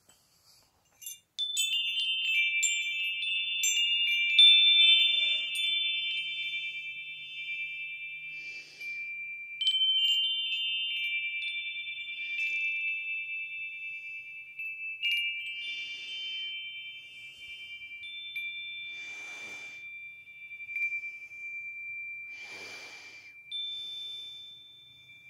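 Agate wind chime's metal tubes struck by its wooden centre striker, ringing with several overlapping high tones that hang on and slowly fade. It is first set ringing about a second and a half in and is struck again about four more times.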